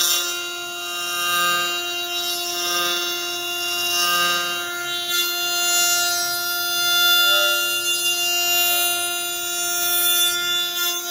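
CNC router spindle running at a steady high-pitched whine while its bit carves a wooden blank turning in the rotary axis, with cutting noise that swells and fades as the wood comes round.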